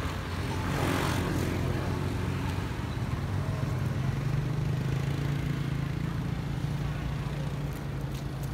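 Road traffic passing close by: a car goes past with a swell of tyre and engine noise about a second in, then a steady low engine hum follows as a motorbike rides by.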